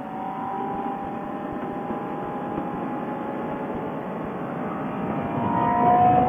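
Sport motorcycle engine running at road speed under wind noise, its note slowly rising in pitch and getting louder near the end as the bike speeds up.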